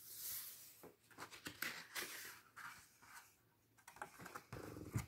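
Faint paper rustling as a hand handles and turns a picture-book page, with scattered soft scrapes and small ticks.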